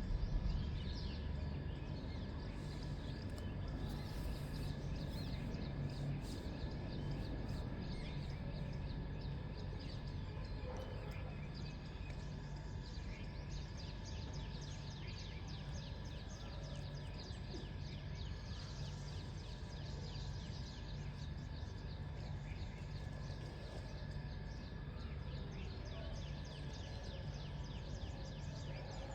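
Outdoor dawn ambience: many quick, rapid chirps over a steady low hum.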